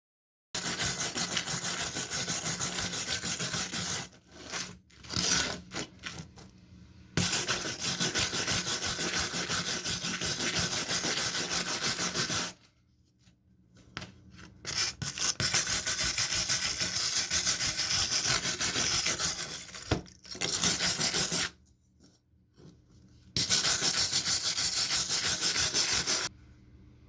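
Abrasive rubbing on a rusty steel knife blade to take the rust off, in several long stretches of steady scrubbing noise that start and stop abruptly.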